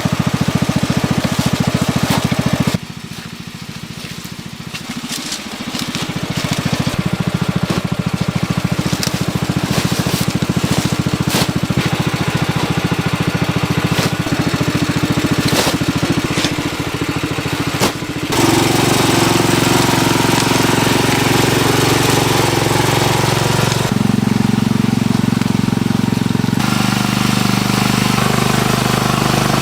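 Engine-driven machinery running steadily, with scattered clicks and knocks through the first half. Its pitch and tone change abruptly several times.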